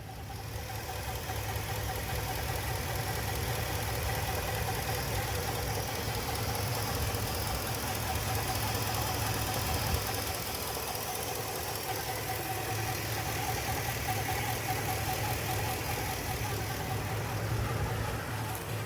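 Ford F-250 pickup running at a steady idle with an unidentified noise, a wavering whine over the low engine hum, coming from under the front of the truck.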